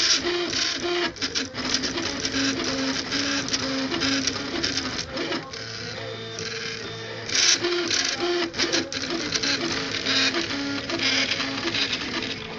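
Prusa Mendel RepRap 3D printer printing: its stepper motors whine in short steady tones that jump from pitch to pitch as the axes change moves, mixed with repeated rattling from the moving frame.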